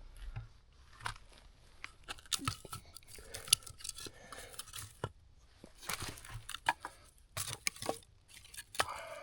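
Firewood logs being set in place one by one to build a log cabin fire: irregular knocks and clacks of wood on wood, with rustling and crunching between them.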